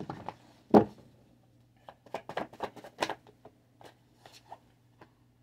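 Tarot cards being handled: a sharp snap about a second in, then a quick run of clicks and flicks, with lighter ticks after, as cards are drawn from the deck.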